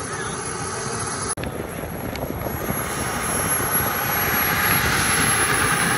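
KingTech K60 model jet turbine in an L-39 Albatross running on the ground: a steady high whine over a rush of exhaust, getting louder about four seconds in. The sound drops out for an instant about a second and a half in.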